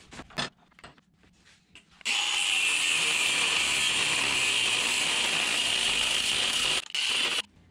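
An angle grinder with a thin cut-off wheel cuts through a threaded rod held in a bench vise: a steady, high-pitched grinding hiss that starts about two seconds in after a few faint clicks. It breaks off once briefly near the end, runs on for half a second more, then stops.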